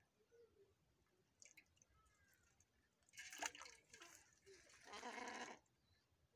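Faint wet plucking of a scalded hen's feathers over a pot of hot water, with a short burst of splashing and rustling about three seconds in. About five seconds in comes a brief wavering call lasting under a second.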